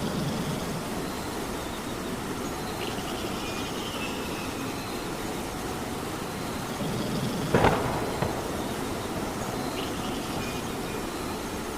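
Steady rain falling, with a sharp crack about seven and a half seconds in and a smaller one just after.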